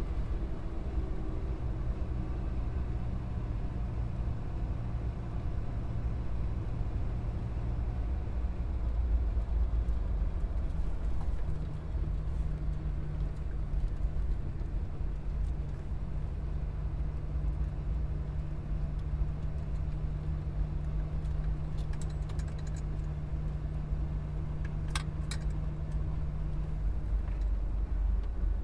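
Car driving at expressway speed: a steady low drone of tyre, road and engine noise with a constant hum, and a few faint clicks near the end.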